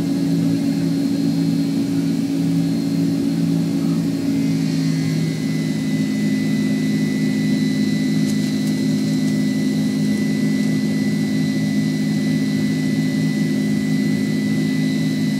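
Cabin noise of a Boeing 767-300 climbing after take-off, heard from inside the cabin: the steady drone of its twin turbofan engines with a few low hum tones. About five seconds in the hum tones shift slightly and a thin high whine joins and holds.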